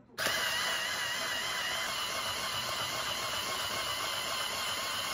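Electric shaved-ice machine switching on about a quarter second in and running steadily, its blade shaving a block of ice into a glass bowl: a dense grinding hiss with a faint wavering whine.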